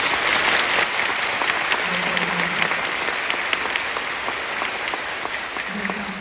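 Audience applauding, a dense, steady clatter of many hands clapping that eases slightly near the end.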